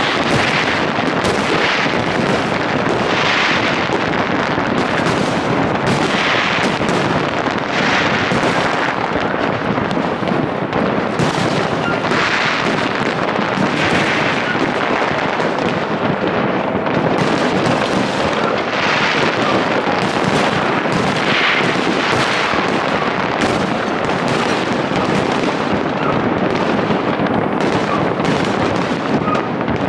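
Large aerial fireworks display: a dense, unbroken barrage of crackling and bangs, with louder bursts every second or two.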